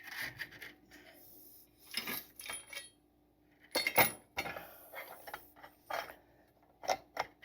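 Metal hardware and tools clinking and rattling in short, irregular bursts while a winch is fitted to its mount, with the loudest clatter about four seconds in.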